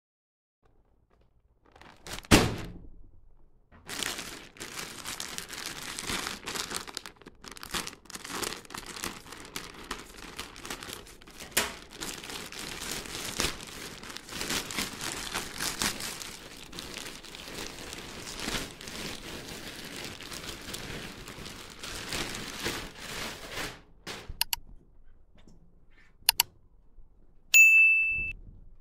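A sharp hit about two seconds in, then a long stretch of thin plastic mailer bag crinkling and tearing as it is ripped open and a padded cushion is pulled out. Near the end, a short bright ding.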